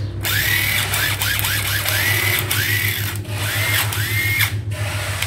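Makita cordless impact driver run unloaded in a series of trigger pulls, the motor spinning up and winding down each time, with a few quick short blips among longer runs.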